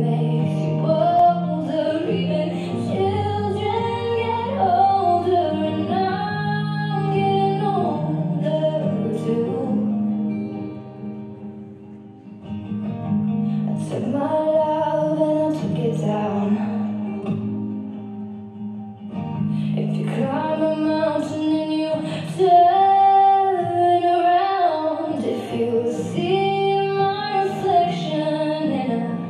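Slow ballad with a woman singing over acoustic guitar, dipping quieter for a moment about twelve seconds in.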